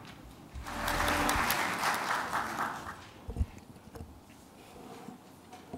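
Audience applauding for about two and a half seconds, then dying away. A dull thump follows, then quiet hall room tone with a few faint knocks.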